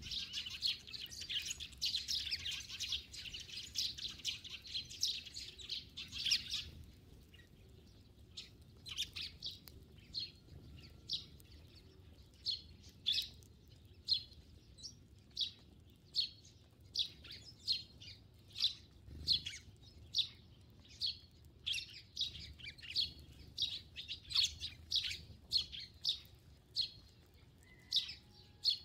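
Eurasian tree sparrows chirping: a dense chatter of many overlapping chirps for about the first six seconds, then single chirps, about one or two a second.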